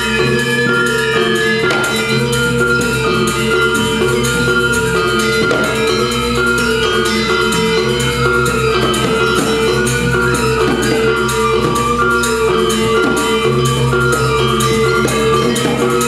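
Balinese gamelan playing: bronze metallophones ringing in a fast, even pulse of strokes over drums and steady low tones.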